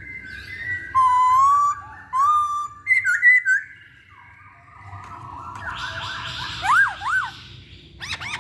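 Poksay Hongkong laughingthrush singing: a string of loud, varied whistled phrases that glide up and down, with a short pause about halfway. Near the end comes a harsher, buzzier stretch with quick rising-and-falling swoops.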